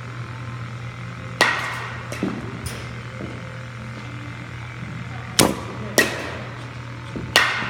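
Sharp cracks of baseballs being pitched and hit in an indoor batting cage, four loud ones and a weaker one, each echoing briefly in the hall, over a steady low hum.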